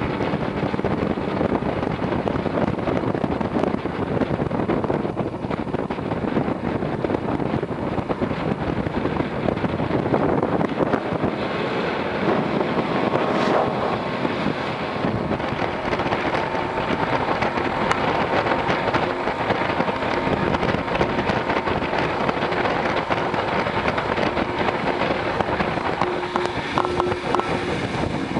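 Motorboat running steadily under way, with wind rushing over the microphone.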